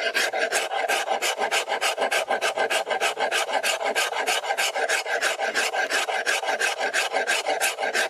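A hand rasp filing wood with fast, even back-and-forth strokes, about four or five rough scrapes a second.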